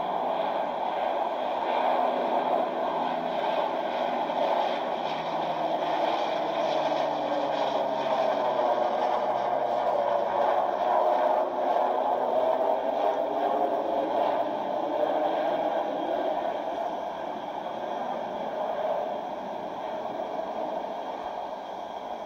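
Convair CV-580 turboprop airliner passing low overhead, its propellers and turbines making a steady drone. The drone builds to its loudest near the middle, a low tone slides slowly down in pitch as the aircraft goes by, and the sound fades toward the end.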